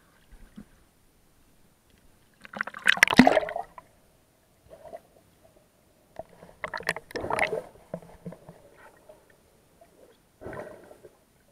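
Water gurgling and sloshing around the camera in three bursts, the loudest about three seconds in, as it moves between air and water.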